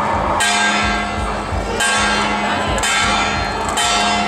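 Struck metal procession percussion ringing like a bell, hit four times about a second apart, each stroke ringing on until the next.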